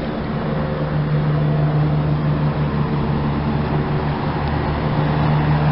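Air-conditioning condensing unit that has just switched on: a steady low compressor hum with the rush of the condenser fan, the hum firming up about half a second in and the whole sound growing slightly louder.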